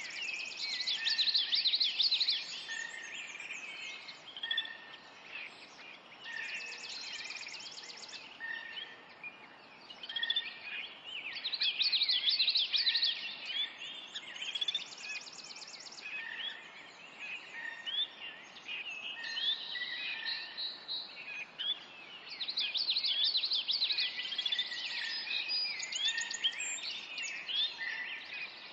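Australian birds chirping and calling in a busy chorus. Spells of quick, dense chirping come every several seconds, and now and then a short high rapid trill, over a faint steady hiss.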